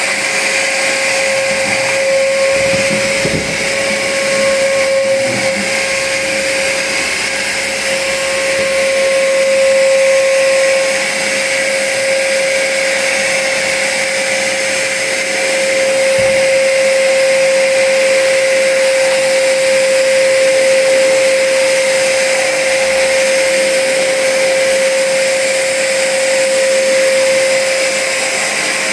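Trumax MX0120 wet/dry vacuum cleaner running steadily at full speed, a high motor whine over rushing air, while sucking up spilled water.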